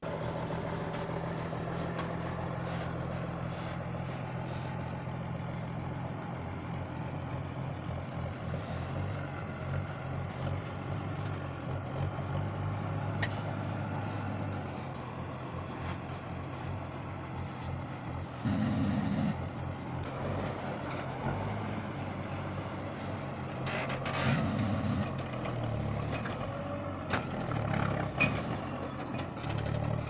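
Engine of a loaded M35A2 6x6 army truck running steadily at low speed as the truck crawls along a stony track. Twice, a little past halfway and again a few seconds later, there is a short loud burst of hiss over the engine.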